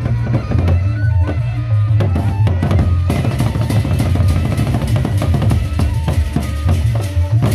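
Gendang beleq ensemble playing: several large Sasak barrel drums beaten with sticks in fast interlocking strokes over a steady low boom. The strokes grow denser about three seconds in.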